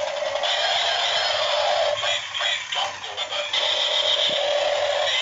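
Wheeled battery-operated toy attack helicopter playing its electronic music and sound effects through a small, tinny speaker. A tone falls in pitch in the first two seconds, the sound turns choppy in the middle, and a steady high tone returns about three and a half seconds in.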